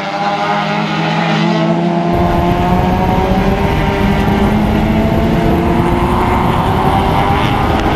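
Race car engine running at high revs, its pitch climbing steadily as it accelerates. A loud low rumble cuts in suddenly about two seconds in and continues under the engine.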